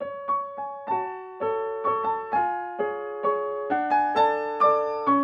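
Background music on a soft piano or electric piano: gentle chords struck about twice a second, each ringing on and fading before the next.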